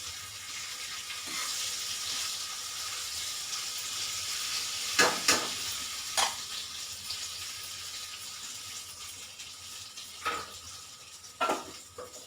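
Raw-banana kofta balls deep-frying in hot oil in a kadhai: a steady sizzle, slowly easing off. A few sharp knocks of a utensil against the pan come about halfway through and again near the end.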